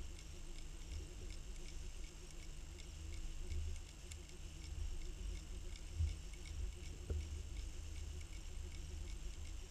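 Underwater sound during trolling: a constant low rumble of water rushing past the towed camera, with a steady hum from the boat's motor carried through the water and faint ticking. A dull thump about six seconds in and a sharp click about a second later.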